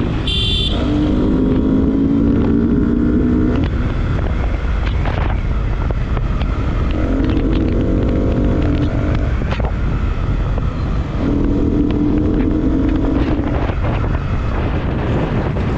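Yamaha R15M's 155 cc single-cylinder engine pulling hard under way, its note climbing in pitch in three long pulls with easier stretches between, over heavy wind noise on the microphone. A brief high-pitched tone sounds about half a second in.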